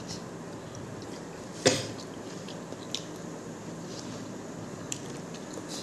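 Eating sounds: chewing and small wet mouth clicks while rice is eaten by hand. One loud, sudden sound comes about a second and a half in.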